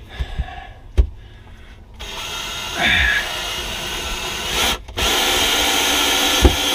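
Power drill driving a screw through a mounting board into a wall stud, starting about two seconds in and spinning up, with a brief stop near the middle before it drives on. A single sharp click about a second in.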